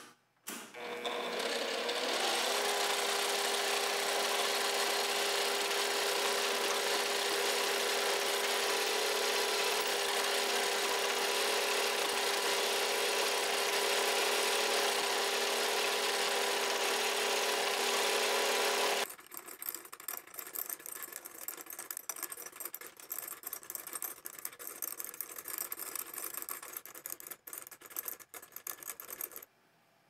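A Sherline benchtop milling machine's spindle motor spins up with a steady whine while a twist drill bores into an aluminium block, then stops suddenly about two-thirds of the way through. After that come faint, irregular light clicks and rattles.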